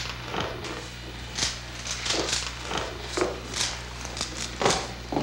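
Irregular rustling and light knocks of people moving about and handling things, over a steady low hum.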